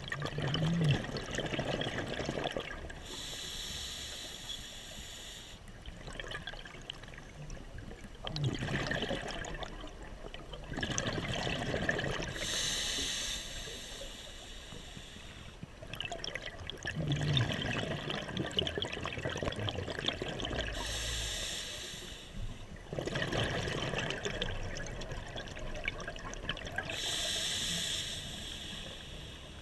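Scuba diver breathing through a regulator underwater: slow, regular cycles of a short hissing inhale followed by a longer gush of exhaled bubbles, about four breaths.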